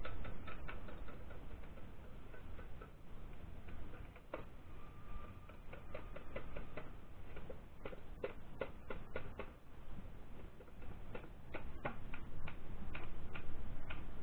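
Irregular light metallic clicks and taps from the aluminium crankcase halves of an old Royal Enfield Bullet engine being handled and fitted together over the studs, thickest about halfway in, over a low steady rumble.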